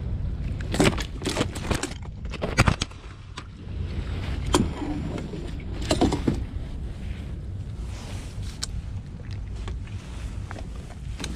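Knocks, taps and rustles of a fish and a tape measure being handled on a plastic kayak, with several sharp knocks in the first few seconds, over a steady low rumble of wind and water.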